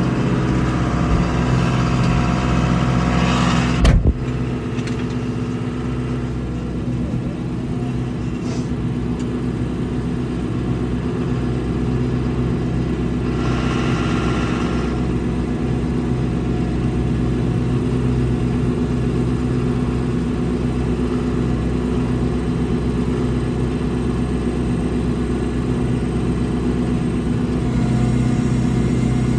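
Farm vehicle engine running steadily at an even pitch, with a sharp knock about four seconds in after which it sounds a little quieter, and a brief hiss near the middle.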